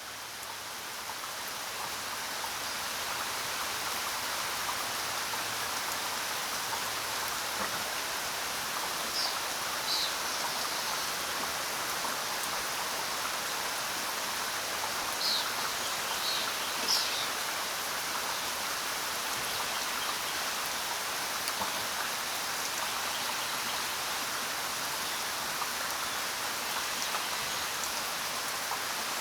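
Steady rain falling, fading in over the first few seconds, with a few brief faint high chirps around the middle.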